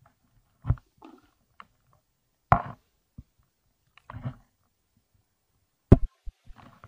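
Hands groping among rocks in shallow water: three sharp knocks, with softer short scrapes between them.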